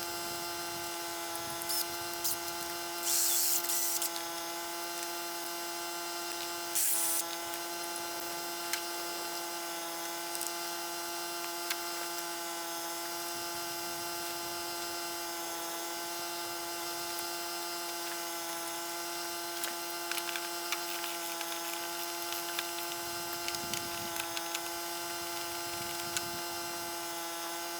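Electric drill motor running at a steady pitch while a bit drills out the centre hole of a body washer to fit a larger bolt. Short scraping bursts of the bit cutting come about three seconds in and again about seven seconds in.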